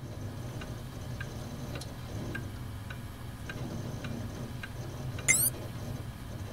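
A clock ticking steadily, a bit under two ticks a second, over a low steady hum. About five seconds in comes a brief, louder sound rising sharply in pitch.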